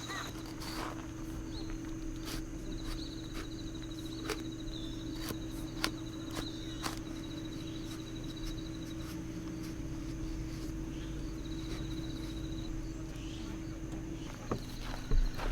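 An insect trilling in high, fast-pulsed stretches of a few seconds, over a steady low hum, with scattered sharp clicks and taps.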